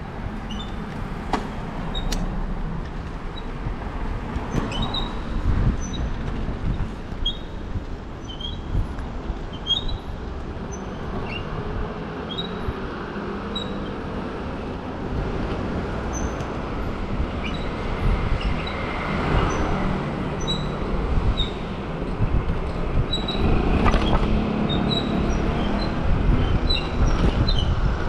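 Street noise while riding a bicycle through a city: a steady rumble of road and wind noise with traffic going by, swelling twice in the second half. Short high squeaks and a few sharp clicks are scattered through it.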